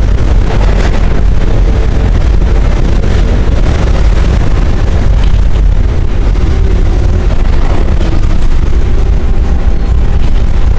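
Hawker Siddeley/UTDC H6 subway car running at speed, heard from inside by the doors: a loud, steady, low rumble of wheels on rails and the running gear, with faint wavering tones on top.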